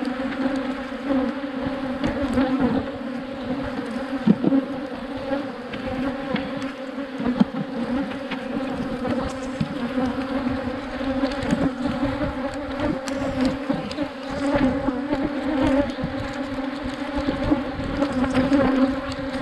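Steady hum of many Africanized honeybees flying around an opened hive, a dense buzzing that holds one pitch with its overtones, with a few faint knocks scattered through it.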